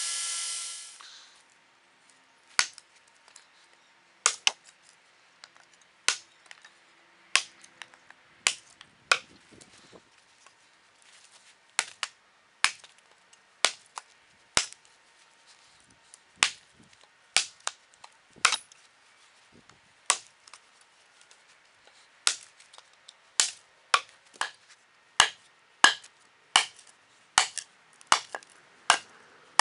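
A belt grinder running cuts off about a second in. Then a steel tomahawk, forged from a wrench, chops into a wooden board again and again: about thirty sharp strikes, spaced a second or two apart at first and coming about two a second near the end.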